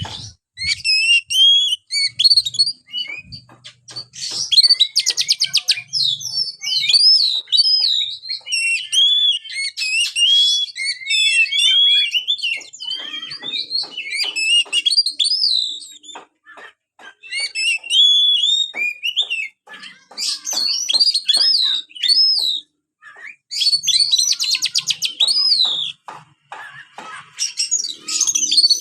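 Oriental magpie-robin (kacer) singing a long, varied song of whistled and sliding notes and chirps, with a fast buzzy rattle about four seconds in and again near the end.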